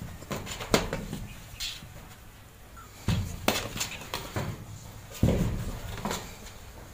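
Scattered clicks and knocks with two louder dull thumps, about three and five seconds in.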